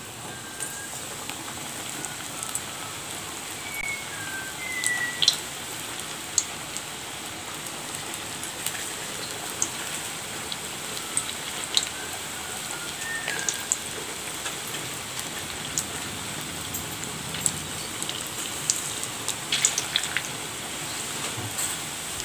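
Bonda batter balls deep-frying in hot oil: a steady sizzle with frequent sharp crackles and pops.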